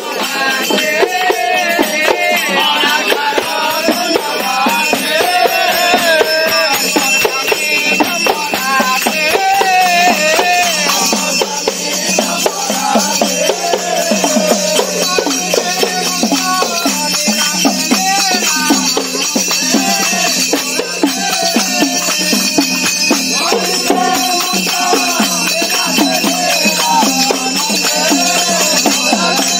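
A group of men singing a Mahima Dharma devotional bhajan together, with small hand cymbals jingling and clashing continuously.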